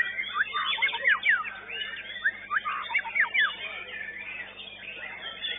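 White-rumped shama (murai batu) singing a fast run of sharp whistled sweeps and chatter, thinning out about three and a half seconds in. The sound is thin and narrow, as picked up by a CCTV microphone.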